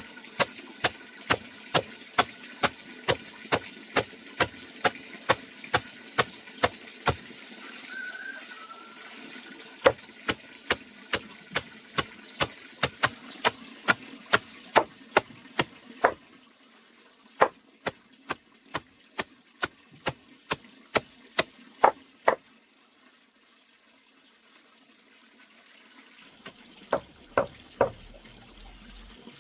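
Rapid, evenly paced chopping strokes, about three a second, in runs broken by short pauses, then a few more strokes near the end.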